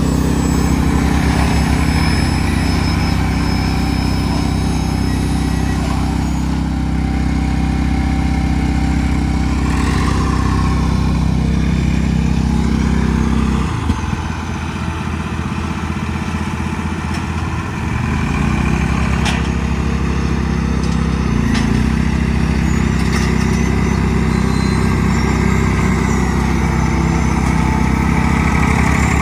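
Tractor engine running steadily. About halfway through its note drops and goes quieter for about four seconds, then comes back up.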